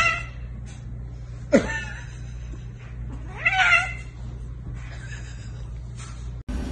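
Cats wrestling, one of them yowling in short drawn-out calls about every two seconds; one call drops sharply in pitch.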